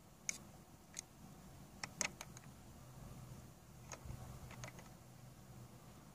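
Faint, scattered small clicks and light taps, about eight over five seconds, the sharpest pair about two seconds in, over a faint steady low hum.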